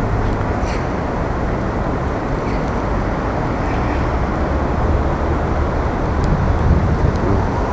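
Steady city street traffic noise: a dense, even rumble of passing vehicles.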